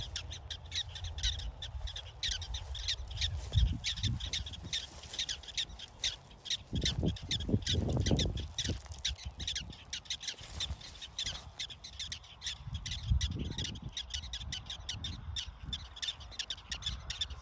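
Prairie dogs giving a long series of short, high alarm chirps, about four or five a second without a break. A few low thumps and rumbles on the microphone come through underneath.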